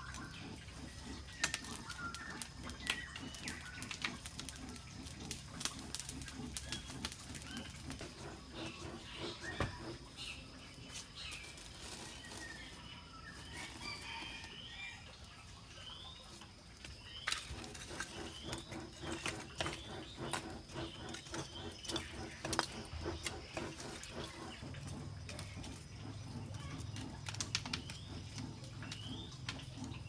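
Hand-pumped tube bellows puffing air into a charcoal furnace, with the charcoal crackling in many sharp clicks and birds chirping.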